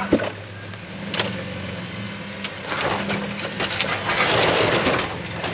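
Off-road vehicle's engine running low and steady as it crawls over rocks, with scattered knocks and crunches of tyres on rock that grow louder about four seconds in.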